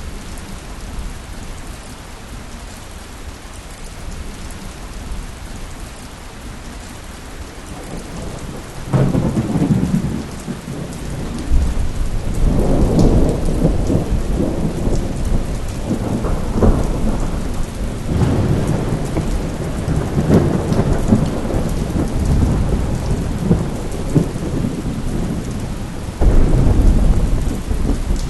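Thunderstorm: steady rain with rolling thunder that starts rumbling about a third of the way in and keeps returning in long heavy rolls, with a sudden loud crack near the end.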